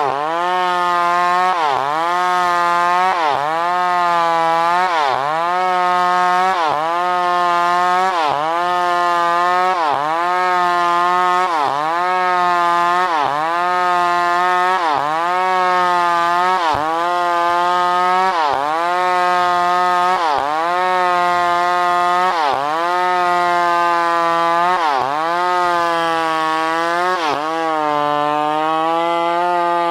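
New West PRO 888 two-stroke chainsaw running at high revs, its pitch dipping sharply and recovering about once a second as the engine bogs under cutting load and picks up again.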